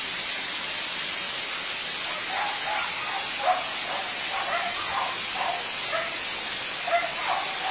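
Steady hiss of volcanic ash and rain falling during an ashfall. Faint short calls sound in the background from about two seconds in.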